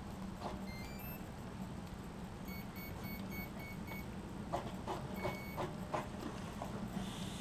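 Electric RC helicopter's speed controller sounding its power-up tones on a freshly connected five-cell battery: a short rising run of beeps, then a string of about six short, evenly spaced beeps and one more a little later, a sign the electronics have powered up. A few light knocks of handling come between them.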